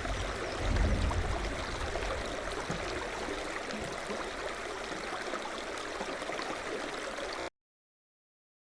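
Steady rushing noise like running water, with a low rumble swelling about a second in. It cuts off abruptly near the end.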